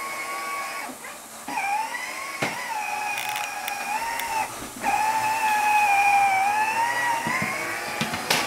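Electric motor and gearbox of a battery-powered ride-on toy quad whining as it drives. The whine cuts out twice briefly and starts again, and its pitch wavers and dips with the load. A couple of short knocks sound over it.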